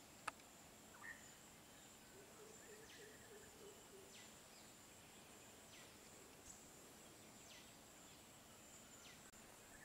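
Faint bush ambience: a steady high insect buzz, with a bird repeating a short falling whistle about every second and a half and a low warbling call briefly. One sharp click just after the start.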